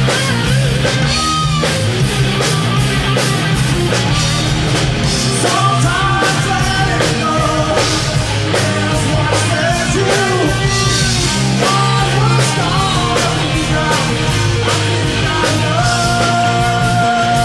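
Live rock band playing: electric guitars, bass and drum kit with a lead singer, loud and dense throughout, with a long held note starting near the end.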